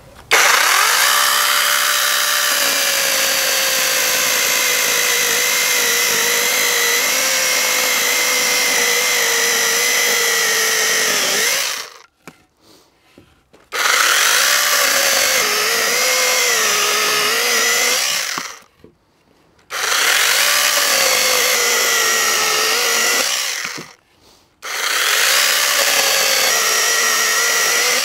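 Hychika CS18D 18 V brushless cordless mini chainsaw cutting through 3-inch round logs: four runs of its whining motor and chain, the first about eleven seconds long and the others about four to five seconds each, with brief stops between. The motor's pitch sags and wavers as the chain bites into the wood.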